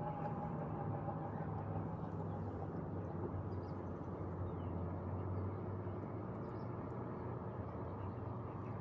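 Outdoor ambience: a steady low rumble with a few faint bird chirps. The last of a ringing tone dies away right at the start.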